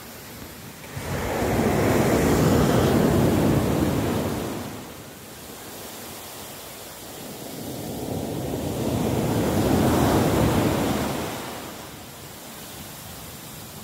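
Small surf breaking and washing up a sand beach: two long swells of rushing water, the first about a second in and the second about seven seconds in, each fading away over a few seconds.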